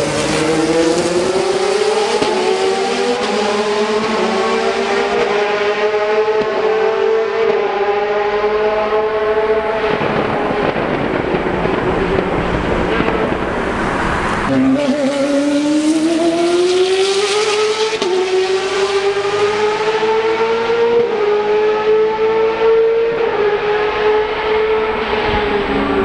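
Ferrari F430 GTC race car's V8 engine at high revs, its note climbing slowly for about ten seconds and then sagging. After an abrupt change about halfway through, a Ferrari 458 GT2's naturally aspirated 4.5-litre V8 starts lower and climbs steadily again under hard acceleration.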